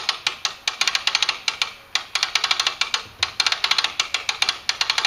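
Hand-crank cable winch on a Haul-Master half-ton pickup truck crane, its ratchet clicking rapidly in quick runs as the handle is turned to let the cable out.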